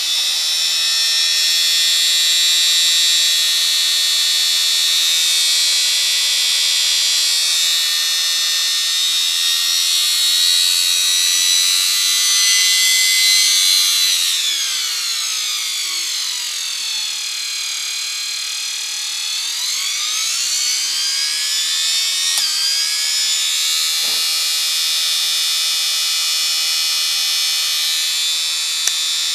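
Small vacuum-cleaner universal motor running with a steady high-pitched whine. About halfway through, the whine sinks steeply in pitch over a few seconds and then climbs back up as the motor slows down and comes back up to speed.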